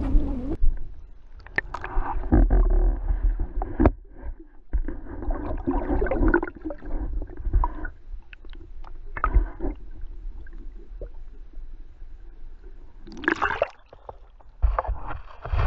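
Water gurgling and sloshing around an underwater camera, with irregular clicks and knocks and a low rumble.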